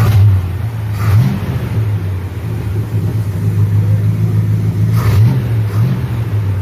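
1978 Dodge Power Wagon's 360 small-block V8 idling steadily, run after a fresh oil change to check for leaks. A couple of short sharp noises come about a second in and near five seconds in.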